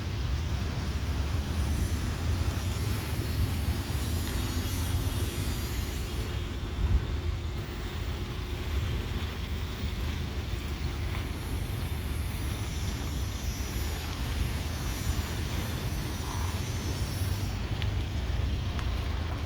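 Boeing 787-9 jet airliner flying over on approach: a steady low engine rumble, mixed with wind noise on the microphone.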